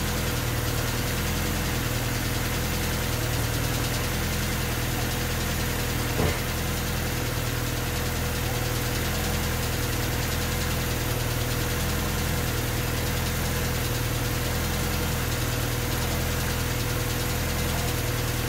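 Honda D16Y8 1.6-litre SOHC VTEC four-cylinder idling at a steady level, with a single sharp click about six seconds in.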